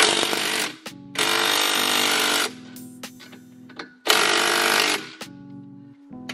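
A ratchet running the nuts down on an exhaust clamp, in three bursts: a short one at the start, a longer one about a second in, and another about four seconds in. Background music plays underneath.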